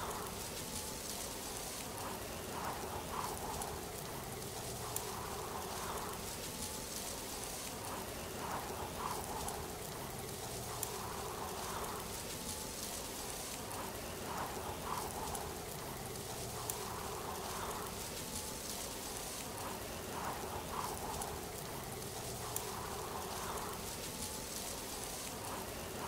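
Steady hiss of falling water, like a waterfall or heavy rain, with soft swells every few seconds and a few faint clicks.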